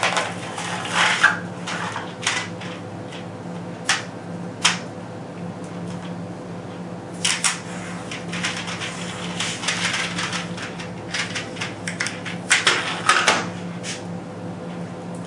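A small box of .22 air-rifle pellets being handled and opened: irregular clicks, taps and rustles of the packaging, bunched about a second in, around the middle, and again shortly before the end, over a steady low hum.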